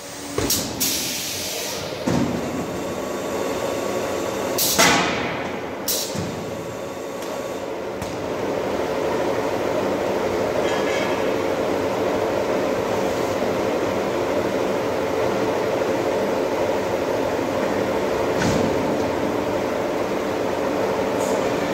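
Automatic silage packing machine working through its cycle: a hiss of air and several mechanical clunks in the first seconds, the loudest about five seconds in. From about eight seconds in, its motors settle into a steady hum.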